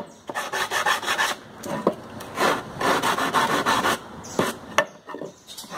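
Sandpaper on a hand sanding block rubbed in repeated back-and-forth strokes along the corner of a pallet-wood slat, knocking off the sharp edge and splinters. A single sharp tap sounds near the end.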